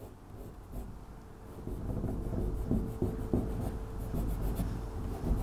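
A fingertip rubbing dry-erase marker off a whiteboard, in short rubbing strokes that grow busier after about a second and a half.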